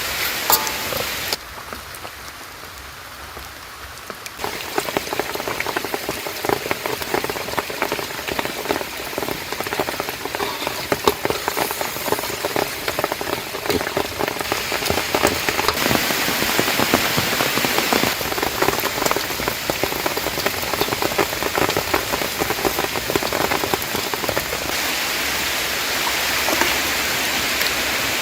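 Steady rain falling, many drops pattering on surfaces, with a quieter stretch about a second in that lasts about three seconds before the rain is loud again.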